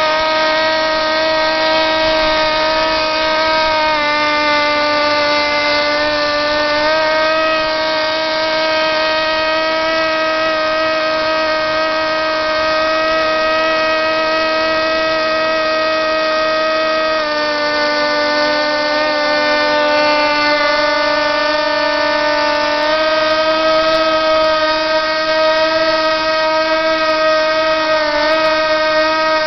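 Several Q40 pylon-racing model airplanes' small two-stroke glow engines running flat out in a race, a steady high-pitched whine made of several tones that shift slightly up and down every few seconds as the planes come and go.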